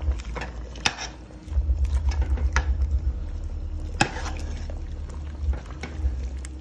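Spoon stirring a stainless-steel pot of stew peas full of liquid and chopped vegetables, with several sharp clinks and knocks against the pot. A low, fast-fluttering rumble runs for about a second and a half, starting about a second and a half in.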